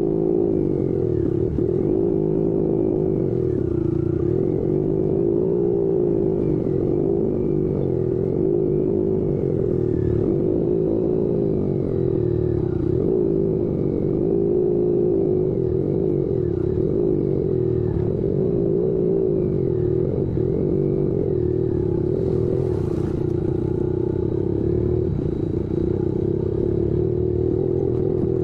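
Motorcycle engine running steadily at riding speed on a dirt road, mixed with wind and road noise and some rattling.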